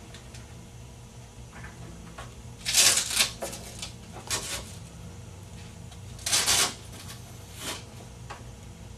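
Two short rustling, scraping noises about three and a half seconds apart, with a few fainter rustles between and after, from hands fitting a tissue and the head harness of a cervical traction unit around a person's head. A steady low hum runs underneath.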